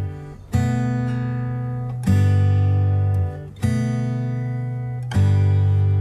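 Acoustic guitar music: four chords strummed about every second and a half, each left to ring out and fade before the next.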